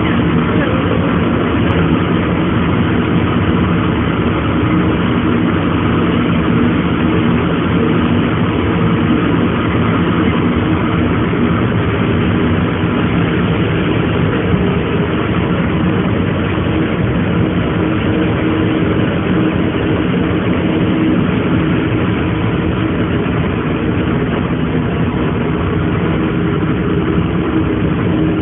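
Car ferry's engines running steadily, a low hum with several steady tones over a wash of noise.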